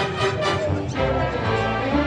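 Instrumental theme-park queue background music, a busy piece of many overlapping notes at an even, steady level.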